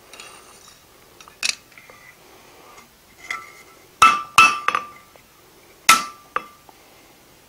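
Hand hammer striking a red-hot half-inch steel bar on an anvil: about eight irregularly spaced blows of varying force, each followed by a short metallic ring, the heaviest a little past the middle. Light finishing blows dressing the forged round shank of a gate-hinge pintle.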